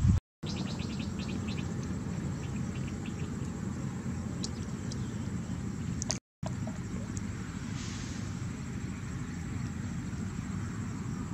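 Open-air field ambience: a steady low rumble with small birds chirping in quick series of short high notes, most of them in the first few seconds and a few scattered later.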